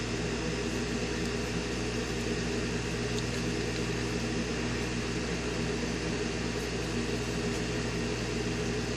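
Steady hum and airy whir of a small electric fan in a hot-air rework soldering station, running evenly with no change.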